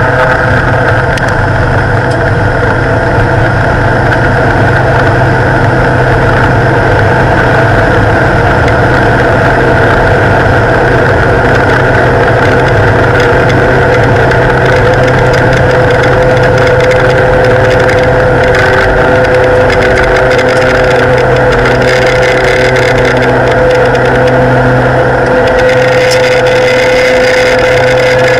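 Twin PT6A turboprop engines and propellers of a Beechcraft King Air at high power, heard in the cockpit during the takeoff run and climb-out. It is a steady loud drone with steady whining tones. Near the end a hiss of rushing air rises over it.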